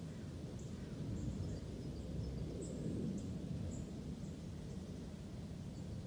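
Low wind noise buffeting the microphone, with faint high bird chirps scattered through it.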